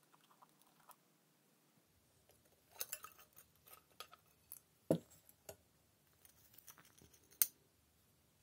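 Small metal and glass parts of an old speedometer gauge handled and pried apart by hand: scraping and light clicks as the bezel ring, glass and illuminating ring come out, with two sharp knocks, one about five seconds in and another a couple of seconds later.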